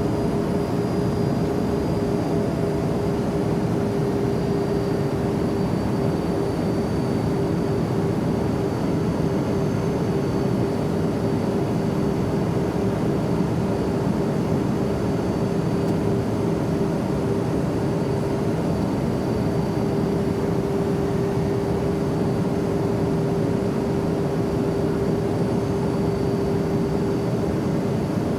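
Jet airplane engines running in a steady drone, with a constant low hum and faint high whine that do not change.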